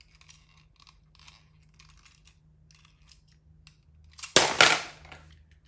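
Plastic toys being handled in a plastic bowl: faint clicks and rubbing, then a loud clatter about four seconds in as a plastic toy fish is set down among the other toys.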